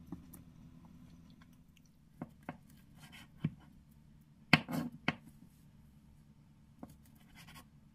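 Table knife and fork cutting an egg-filled tomato slice on a bamboo cutting board: a few light clicks and taps of metal on the wood, the loudest a sharp knock of the blade on the board about midway, followed by a short scrape.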